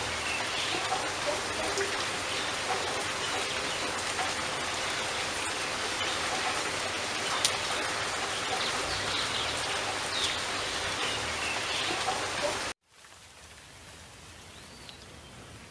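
Dense, steady hiss of rushing water with scattered bird chirps. About 13 seconds in it cuts off abruptly to a much quieter forest ambience, where one short bird chirp sounds near the end.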